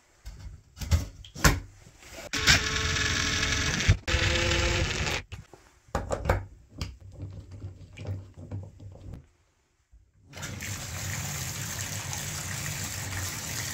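Knocks and clicks as the chrome trim plate and clear knob handle of a Moen tub/shower valve are fitted, with a loud buzzing stretch of about three seconds a few seconds in. After a short silence, water starts running steadily from the bathtub spout near the end.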